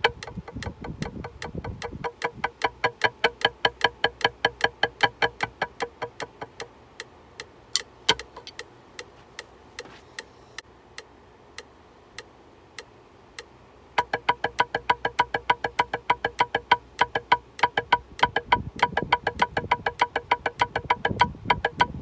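Drumsticks playing a rudiment exercise on a practice pad in time with a metronome click. The playing stops about seven seconds in, leaving the metronome ticking alone about twice a second, and starts again about fourteen seconds in.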